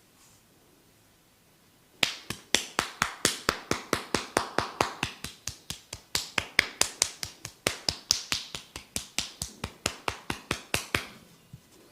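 A fast, even run of sharp hand strikes, about five a second, starting about two seconds in and stopping shortly before the end. These are the slaps and snaps of a barber's percussive hand-tapping massage.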